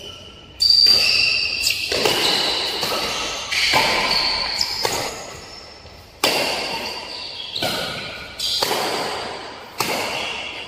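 Badminton rackets striking a shuttlecock in a fast doubles rally: a series of sharp hits about a second or so apart, each ringing on in the echo of a large sports hall.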